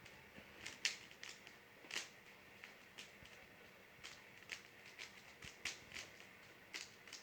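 Rubik's cube being turned fast by hand: faint, irregular plastic clicks and clacks of the layers snapping round, a few per second.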